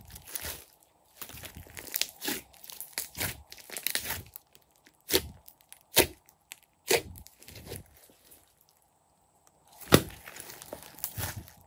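Glossy slime being pressed and kneaded by hand, giving irregular sticky clicks and crackles. A sharper, louder snap comes about ten seconds in.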